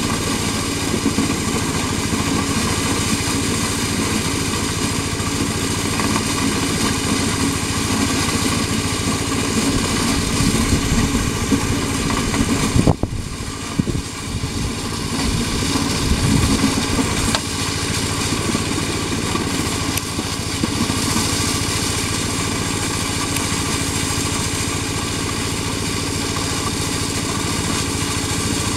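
Small engine of a motorised corn sheller running steadily, with a brief dip about 13 seconds in.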